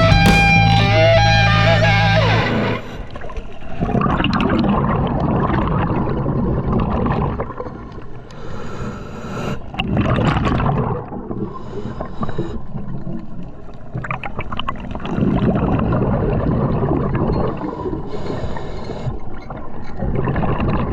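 Electric-guitar rock music that stops abruptly about two and a half seconds in. It gives way to uneven noise of water around a small boat, rising and falling.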